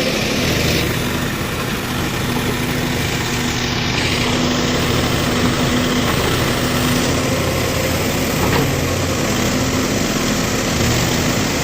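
Case 851EX backhoe loader's diesel engine running steadily, with an even low hum.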